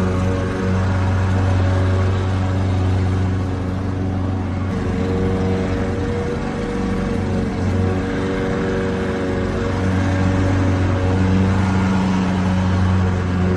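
Lawnmower engine running steadily, its tone shifting slightly about five seconds in.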